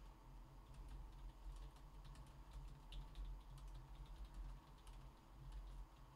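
Faint, irregular clicks of typing on a computer keyboard, over a low steady hum.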